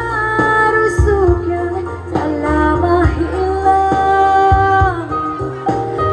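An Indonesian song with a sung melody of long held notes over instrumental accompaniment and a steady bass.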